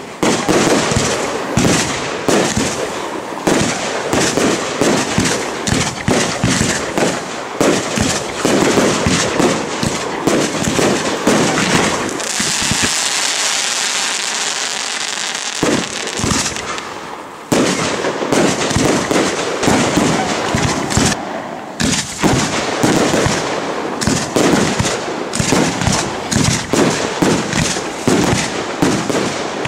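Aerial fireworks display: a rapid, almost unbroken run of bangs from bursting shells and launches. About halfway through, the bangs give way for several seconds to a steadier hiss of sparks, then the rapid bangs resume.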